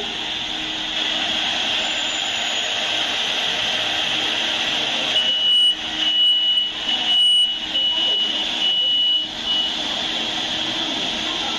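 Connector rework station running with a steady airflow hiss and a low hum. About five seconds in it gives a series of six or so short, high beeps at one pitch, ending before ten seconds.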